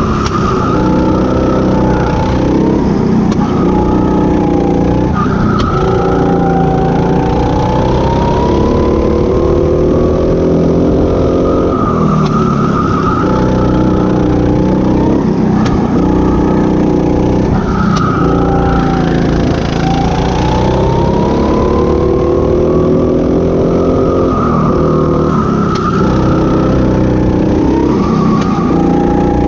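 Go-kart engine running hard from the driver's seat, its pitch repeatedly climbing and then dropping every five or six seconds as the kart accelerates and slows for the corners.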